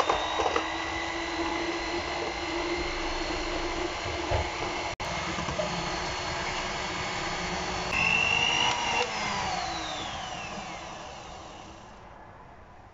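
Electric hand mixer running, its twin wire beaters whirring through a thin egg, sugar and milk mixture in a glass bowl. The steady motor whine breaks off briefly about five seconds in, then falls in pitch and fades over the last few seconds.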